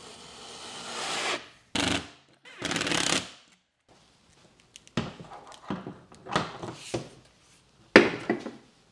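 A steel putty knife scraping spackle across a wall, in strokes that swell and stop. Then a series of plastic knocks and clunks as a metal detector is lifted up and hooked onto a 3D-printed PLA wall hook, with a loud thunk as it seats near the end.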